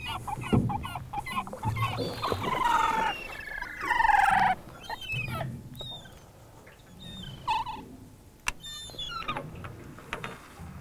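Gulls calling: loud, falling cries over the first few seconds, then shorter, higher calls, with a quick run of clicks near the end.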